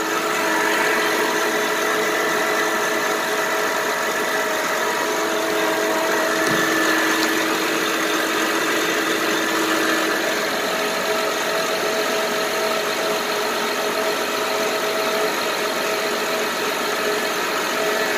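2007 Honda Pilot's 3.5-litre V6 idling steadily, heard up close in the engine bay, with a steady whine of several tones over the running engine. The alternator is not charging, and the owner hears something different that he puts down to the alternator's bearings "or whatever".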